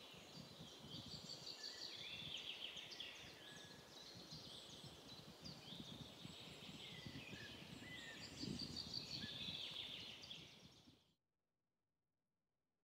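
Birds singing, many quick chirps and short trills overlapping, with a faint low rumble underneath. The sound cuts off suddenly about eleven seconds in, leaving silence.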